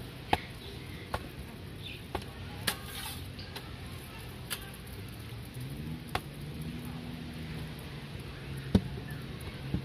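Roti dough slapped down and stretched thin on a stainless-steel counter: scattered sharp slaps and taps, the loudest near the end, over a low steady hum.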